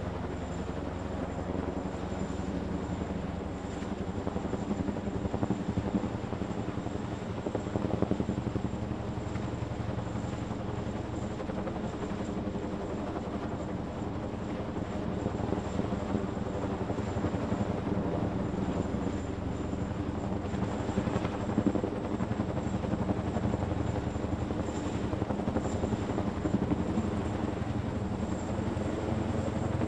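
CH-47 Chinook tandem-rotor helicopter running steadily: a dense, rapidly beating rotor drone with a thin, high, steady whine on top, swelling slightly in loudness now and then.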